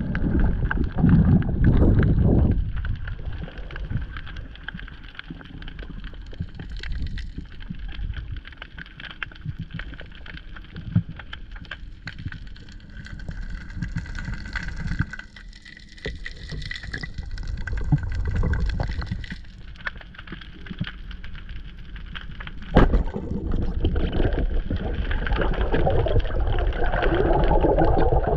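Underwater sound picked up by an action camera's housing on a free dive: a steady, muffled low rush of water with faint crackling, and one sharp knock a little after three-quarters of the way through. The water noise grows louder over the last few seconds as the diver nears the surface.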